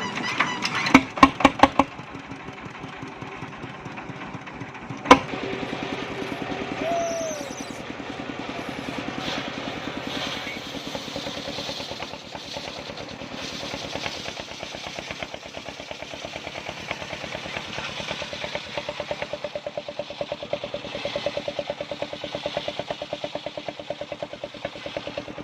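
Engine of a portable circular sawmill running steadily with an even firing rhythm. A quick series of sharp knocks comes about a second in, and one loud knock a few seconds later.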